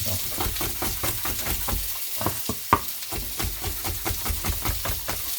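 Breaded grouse breasts frying in butter and olive oil in a hot pan, sizzling with a dense run of small crackles and pops, and one sharper crack about halfway through.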